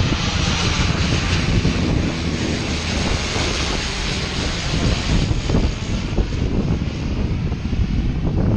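Airliner on final approach passing low overhead, its engine noise loudest a second or so in and then slowly fading as it moves away.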